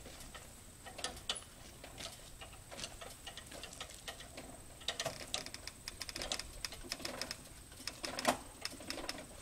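Hand-cranked lifting jack under a Model T railcar, clicking and ticking as it is cranked to raise the car off the rails for turning. The clicks come thicker about halfway through, with one louder knock near the end.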